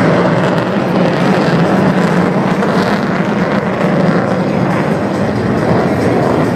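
F-15 Eagle twin-engine fighter jet flying a high-G turn: a loud, steady jet roar.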